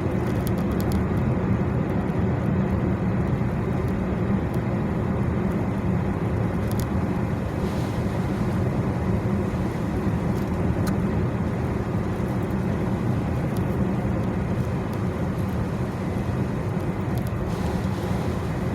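Steady road noise of a car being driven, heard from inside the cabin: engine and tyres on wet pavement as one even, low noise.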